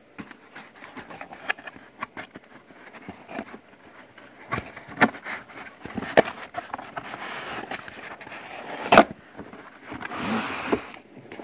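Cardboard router box and its foam packing being opened and handled: rustling and scraping with a series of knocks and thuds, the loudest about nine seconds in.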